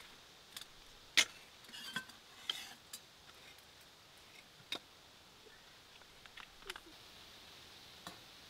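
Scattered light clicks, clinks and knocks of mugs and coffee gear being handled and set down on a wooden crate, the sharpest knock about a second in.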